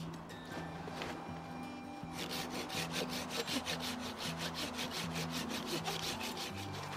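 Folding pruning saw cutting through a dead birch log, starting in about two seconds in with fast, even rasping strokes, about five a second, that stop shortly before the end. Soft background music underneath.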